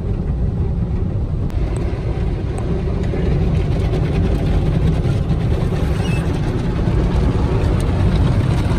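Automated tunnel car wash heard from inside the car's cabin: a steady low rumble of the wash machinery and water as foam soap and then the rotating side brushes and washers work over the car. A hiss of spraying water rises about a second and a half in.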